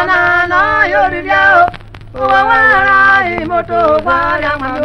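Singing in a traditional Okpe song, a melodic vocal line that pauses briefly a little under two seconds in and then goes on. A steady low hum runs beneath.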